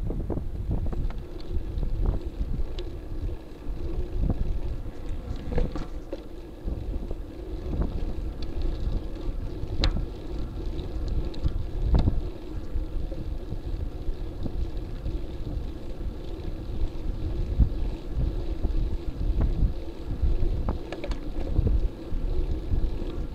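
Wind buffeting the microphone of a camera on a moving bicycle, over a steady rumble of tyres on pavement, with scattered sharp clicks and rattles.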